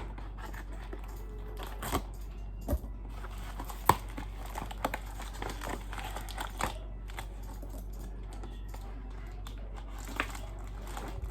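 A taped cardboard box being opened by hand: packing tape being pulled and torn off, with crinkling packaging and scattered sharp clicks and snaps.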